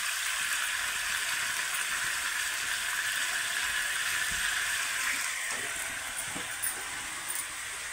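Chicken and masala sizzling in hot oil in a kadhai, a steady frying hiss that eases off a little about five seconds in, with a faint knock or two.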